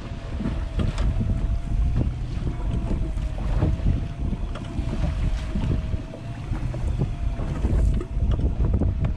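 Wind buffeting the microphone and water sloshing against a small boat's hull at sea, with a faint, slightly wavering whine underneath and a few light clicks.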